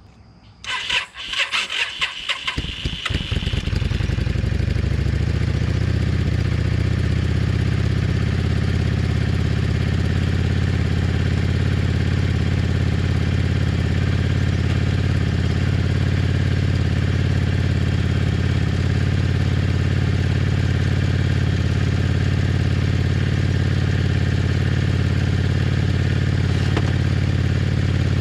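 Yamaha V-Star 650's air-cooled V-twin turned over by the electric starter with a whine, on a weak battery helped by a jump pack. It catches after about three seconds and settles into a steady idle, its first start after a carburettor rebuild.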